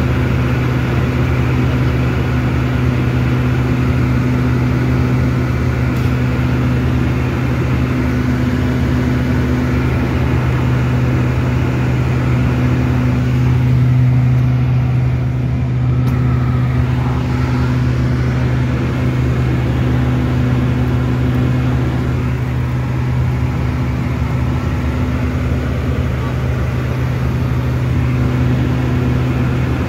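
Steady drone of a King Air F90's twin Pratt & Whitney PT6A turboprops in flight: a strong, even low hum with a second hum above it, over constant rushing noise.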